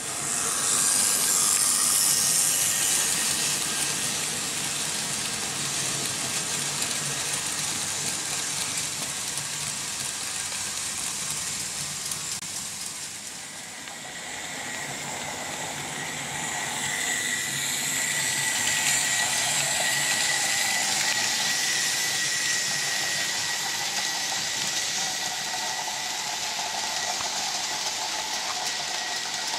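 Several Märklin H0 model trains running on vintage tinplate M-track: a steady metallic rattle and hiss of wheels on the rails with the drone of the locomotive motors, louder in the first few seconds. A thin steady whine sets in about halfway through.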